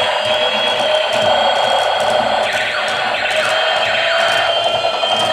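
Battery-powered toy robot and toy dinosaur running: a steady small gear-motor whir under electronic toy sound effects, with several falling electronic sweeps about halfway through.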